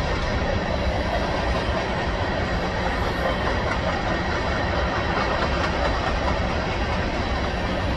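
Freight train of covered hopper cars rolling past at a steady pace: the continuous noise of steel wheels running on the rails.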